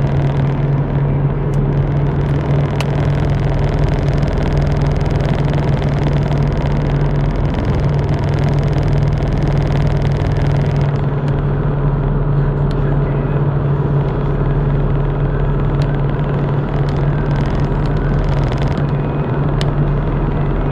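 Steady road and engine noise inside a car cruising at motorway speed, with a constant low hum. A higher hiss fades out about halfway through.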